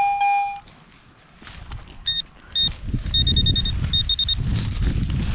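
A metal detector's steady mid-pitched target tone, cutting off about half a second in. From about two seconds in, a pinpointer gives short runs of high-pitched beeps over rustling and scraping noise.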